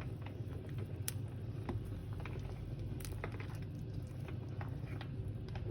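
Scattered light clicks and taps of cooking and handling in a kitchen over a steady low hum, with a slightly sharper click near the end.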